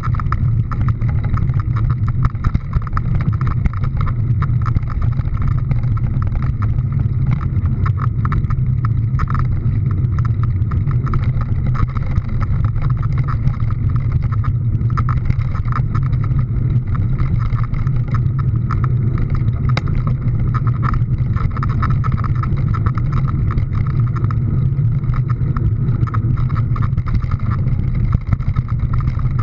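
Steady, unbroken low drone of a running motor vehicle, with no change in pitch.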